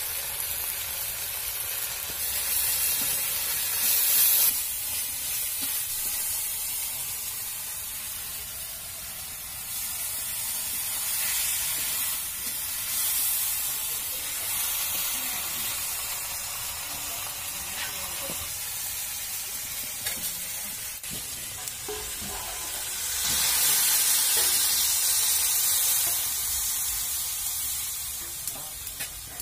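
Masala paste and pieces of shol fish and brinjal sizzling in hot oil in an iron kadai over a wood fire, with a metal spatula stirring and scraping against the pan. The sizzle swells louder twice, a few seconds in and again near the end.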